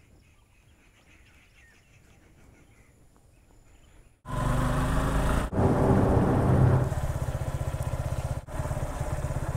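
Near silence for about four seconds, then a motorcycle engine comes in suddenly and loud, its pitch shifting briefly, and settles into a steady running pulse, broken by two short drop-outs.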